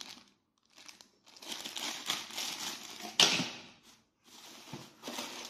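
Plastic packaging bags crinkling and rustling as bagged fittings are handled, with one sharp knock a little past three seconds in, the loudest moment.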